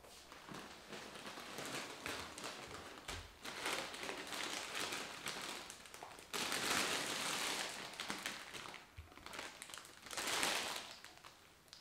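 Rustling and crinkling of a plastic salad bag being handled and pulled out of a jute tote bag set on a wooden table. The crinkling is loudest about six to eight seconds in and again around ten seconds.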